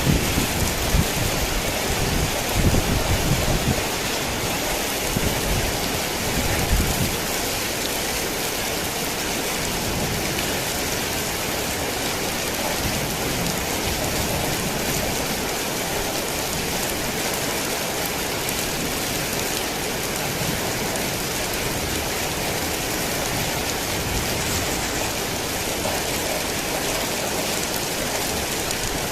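Heavy rain falling steadily, with thunder rumbling low through the first several seconds.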